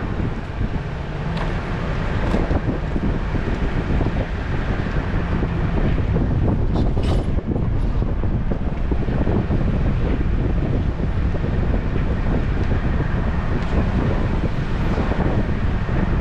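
A vehicle driving slowly along a campground road, with a steady low rumble of engine and tyres and wind buffeting the microphone.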